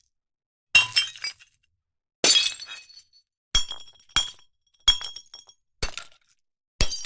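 Glass breaking, one separate smash after another, about seven in all. Each is a sharp crash that dies away within about half a second, with brief silences between them.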